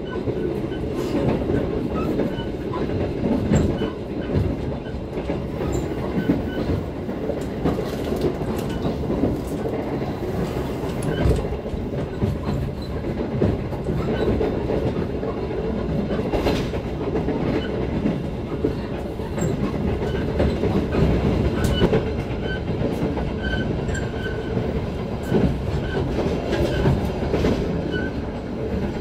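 Inside an executive-class passenger coach of a moving train: a steady low rumble of the running train, with scattered clacks and knocks from the wheels and car body and faint small squeaks. The noise is still fairly loud, which the rider puts down to sitting by the door at the very end of the coach.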